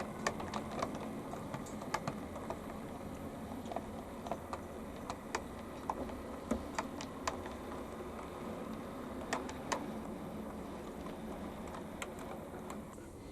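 Irregular light clicks and taps, about one or two a second, over a faint steady hiss.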